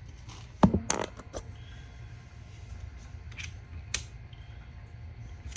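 Hand work on plumbing fittings: a sharp knock about half a second in, another just after, then scattered light clicks and taps over a low steady hum.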